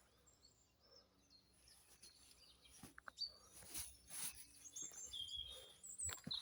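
Faint outdoor quiet with a few short, high bird chirps, clustered near the end, and a few soft clicks or knocks in the middle.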